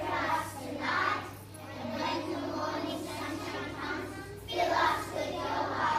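A large group of young children's voices together, singing or chanting in a group.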